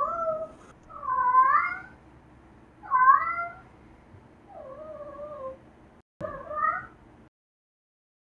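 An American Shorthair cat meowing five times, each meow a short call that bends up or down in pitch; the fourth is softer than the others.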